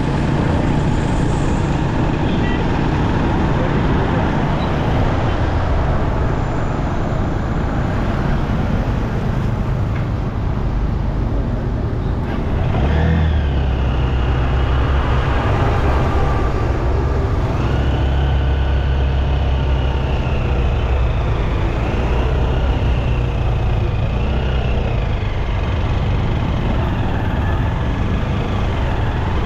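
Steady road traffic and engine noise, with a low engine hum throughout. About halfway through the hum grows stronger and a wavering high whine joins it for roughly a dozen seconds.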